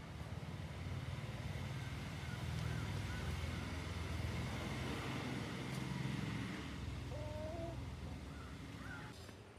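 Low engine rumble of a motor vehicle, growing louder over the first few seconds and fading near the end, with a few faint short bird chirps above it.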